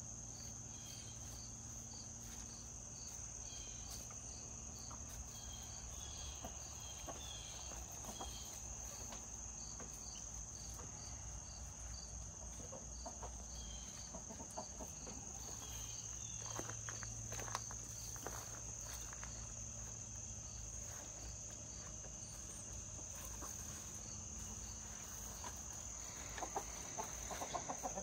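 Evening insect chorus: crickets chirping in an even rhythm over a steady high-pitched buzz, with chickens clucking softly now and then.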